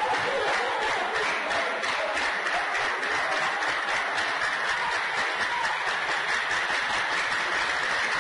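Crowd of spectators clapping steadily, a dense patter of many hands, with a few voices calling out faintly over it.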